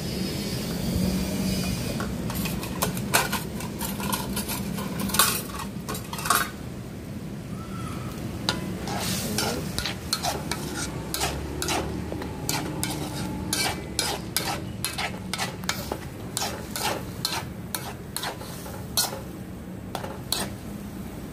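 A utensil stirring and clinking against an aluminium wok, in many short irregular knocks and scrapes from about two seconds in, over a faint sizzle of chicken simmering in caramel sauce.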